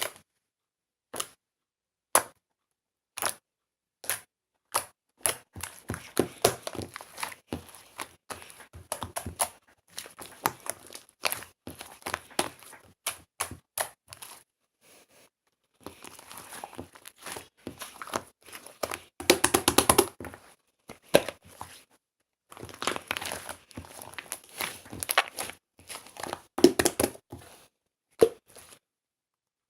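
Toy slime being pressed, poked and stretched by hand, giving sticky clicks and crackling pops. At first single clicks come about once a second, then dense runs of crackling, the thickest a little past the middle and again near the end.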